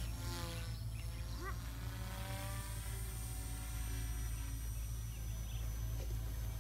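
Blade mCP X BL micro RC helicopter flying overhead: a buzzing rotor hum whose pitch drifts up and down as it manoeuvres, over a thin steady high whine from its brushless motor.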